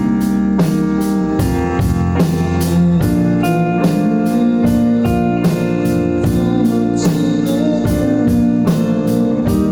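Band music with guitar over a steady drum beat, about three drum strokes a second, under sustained chords.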